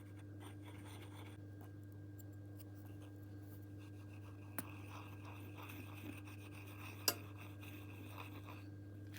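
Quiet workshop handling sounds: faint rubbing and scratching, with two light clicks, one about halfway through and one near the end, over a steady low electrical hum.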